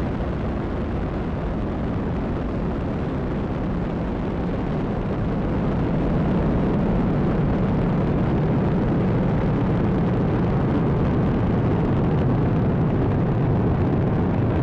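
Falcon 9 rocket's nine first-stage Merlin engines firing during the climb just after liftoff: a steady, dense rumble that grows louder about six seconds in.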